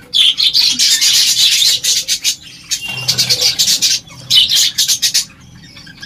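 Budgerigars calling in loud bursts of rapid, raspy chatter: a long burst lasting about two and a half seconds, then a shorter one about four and a half seconds in.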